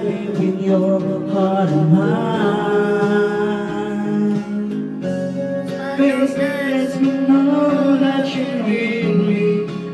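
A male voice singing a song over instrumental backing music, holding and bending long notes.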